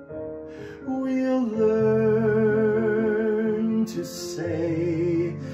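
A man singing long held notes with vibrato over a recorded musical accompaniment, with a short break between phrases about four seconds in.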